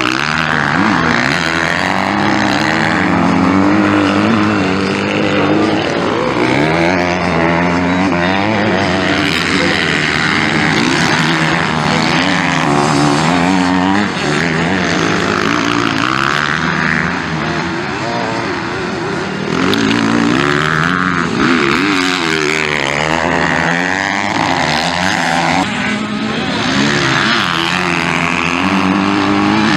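Several 250cc MX2 motocross bikes racing, their engines revving up and down together at different pitches, one rising as another falls.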